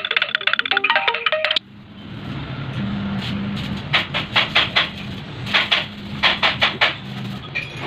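A chime-like music melody cuts off about a second and a half in. Then a steady low hum, with two runs of quick metallic clinks from tools and engine parts being handled during a motorcycle engine teardown.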